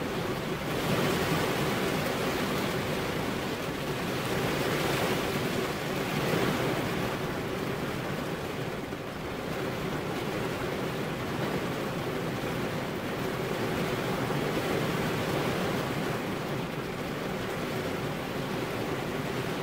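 Heavy rain falling, a dense steady hiss that swells and eases every few seconds.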